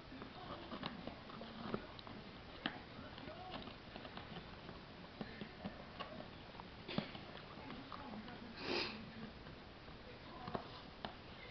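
A paper plate crackling and tapping as a Shih Tzu chews it and a kitten paws at it, in scattered faint bursts. There is a single louder sniff about nine seconds in.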